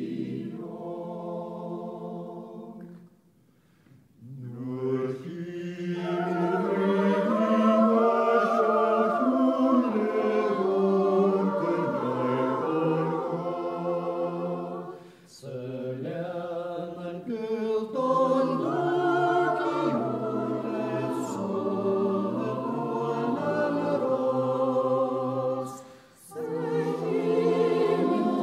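Choral music: a choir singing long held notes in slow phrases, with short breaks between phrases about three seconds in, midway, and near the end.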